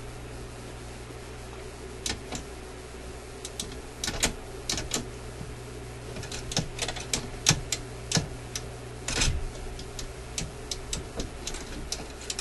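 Irregular small metallic clicks and taps of the suitcase record player's idler arm, bracket and spring being handled, with a short scrape about nine seconds in, over a steady low hum.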